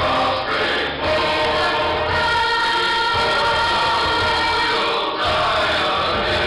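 Choir singing a worship song with accompanying music, holding long sustained chords, with a brief break about a second in and another near the end.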